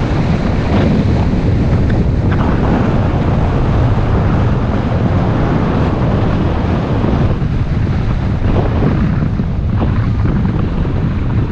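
Wind buffeting the microphone of a camera on a moving road bike: a loud, steady, deep rush of noise.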